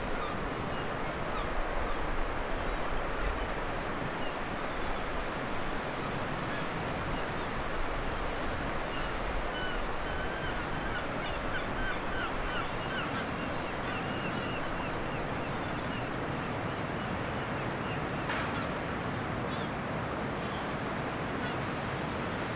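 Baltic Sea surf washing steadily onto the beach. About ten seconds in, a bird gives a quick run of short calls.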